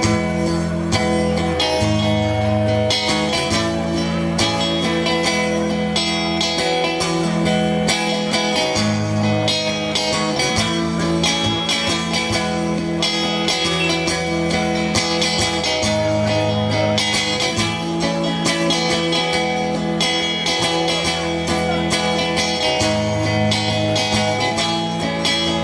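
A live band playing an instrumental intro led by strummed guitar over a steady beat.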